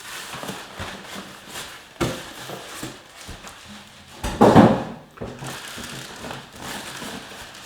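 Unpacking noises: styrofoam packing blocks and cardboard being slid, rubbed and handled, in irregular scrapes and knocks. A louder, longer rub comes about halfway through.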